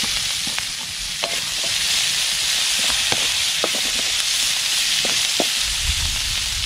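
Sliced onions and chili sautéing in hot oil in a wok, a steady sizzle with scattered small clicks as they are stirred with a wooden spatula.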